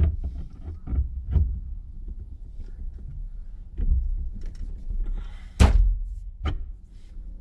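Thunks and knocks of steering wheel parts being pushed and worked together while they bind and won't line up, with the loudest thunk about five and a half seconds in and another about a second later.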